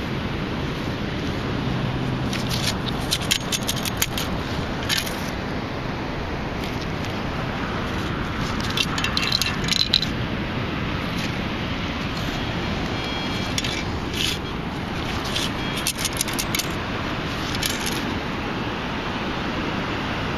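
Sand and small metal bits rattling and scraping in a perforated metal beach sand scoop as it is shaken and sifted, coming in several clusters of clicks over a steady background hiss.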